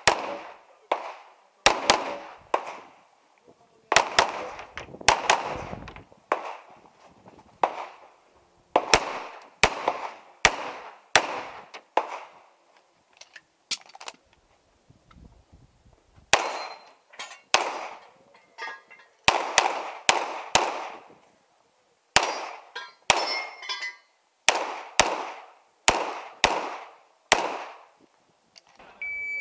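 Pistol shots from a Production-division handgun during a practical-shooting stage, fired mostly in quick pairs and short strings with gaps of a second or two between groups. Each shot echoes briefly.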